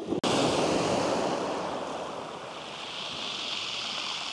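Sea waves breaking and washing up the beach, a steady rush that is loudest just after a brief cut-out a fraction of a second in, then eases off.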